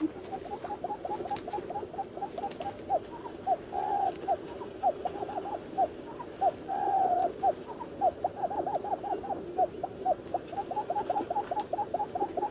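Puyuh kebun quail calls, most likely a recording played from a small lure speaker hidden beside the snares. They come as a fast series of short rising notes, about three to four a second, with two longer drawn-out notes in the middle.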